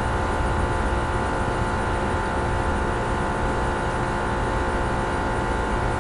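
Steady mechanical hum from a running machine, with several constant tones over a low rumble, unchanging throughout; no shots are fired.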